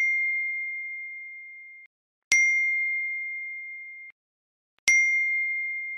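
A bell-like chime dinging three times, about two and a half seconds apart; each ding is a single high note that rings down and is cut off short.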